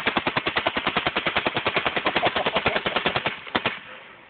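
Paintball gun firing a rapid stream of shots, about ten a second, easing off a little after three seconds in with one or two last shots.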